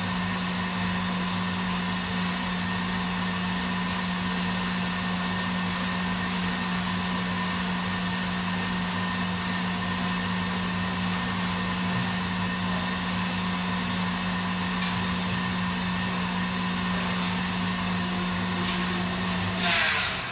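Electric mixer running steadily with a low hum while it mixes food colouring into sugar paste. It stops near the end after a brief louder noise.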